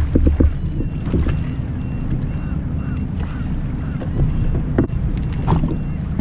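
Sea-Doo Fish Pro personal watercraft running across the water: a steady low engine and wind rumble, with a few sharp knocks and a faint pulsing high tone over it.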